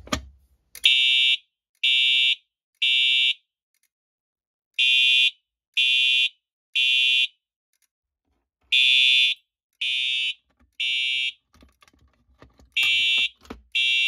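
Simplex TrueAlert fire alarm horn strobe sounding after the pull station is pulled, its horn giving the temporal-3 evacuation pattern: three half-second beeps, a pause, then three more, repeating. Light clicks and knocks come near the end as the pull station is opened.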